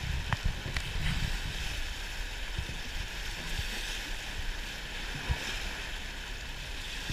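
Steady rush of white-water river rapids streaming past a wooden flat-bottomed river boat, with a low rumble underneath and a few light knocks.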